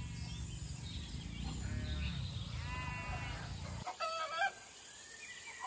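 Animal calls over a steady low rumble: a couple of short wavering calls, then a louder call about four seconds in. The rumble stops abruptly just before the louder call.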